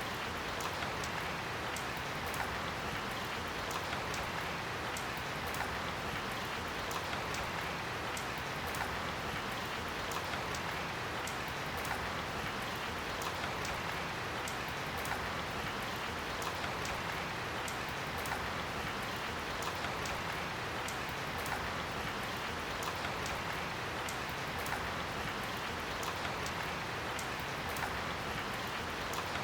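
Steady light rain, a drizzle, falling, with a dense hiss and many small scattered drop ticks.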